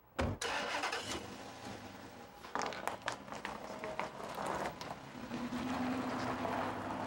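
A car door shuts with a deep thud, then a police car pulls away and drives off, its engine and tyres running steadily, with a steady engine note coming up about five seconds in.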